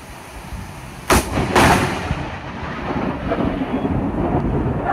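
Close lightning strike over steady rain: a sharp thunderclap about a second in, a second crack half a second later, then thunder rumbling on loudly.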